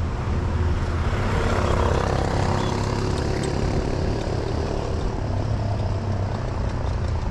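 Road traffic around a moving bicycle: motor vehicle engines running close by over a steady low rumble, a little louder about one to three seconds in.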